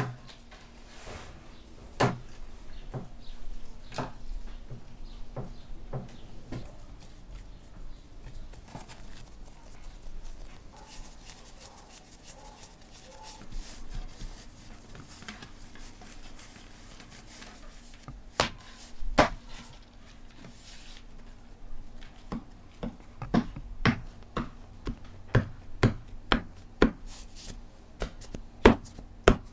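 Hands working flatbread dough on a wooden table, with a few single knocks. Over the last several seconds comes a string of sharp taps at about two a second: a pin-studded bread stamp (chekich) pressed into the dough against the wooden board to dock it.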